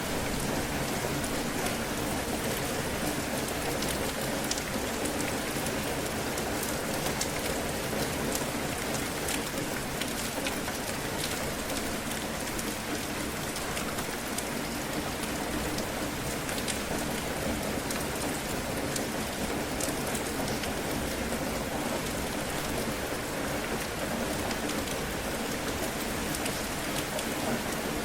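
Steady heavy rain falling, a dense even hiss with many separate drops ticking on a surface.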